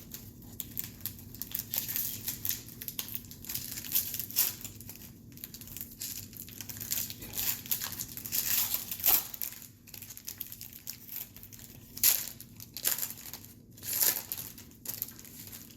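Trading-card pack wrappers crinkling and tearing as baseball card packs are opened, mixed with the rustle of cards being handled and flipped through: a string of short, irregular crackly rustles, with louder bursts about halfway and again later on.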